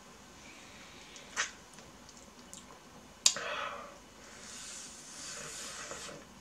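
Close-up eating sounds of a pomelo wedge being bitten off its rind. There is a small click a little over a second in, then a sharp snap about three seconds in followed by a wet, noisy half-second bite. A soft hiss of chewing and slurping runs through the last two seconds.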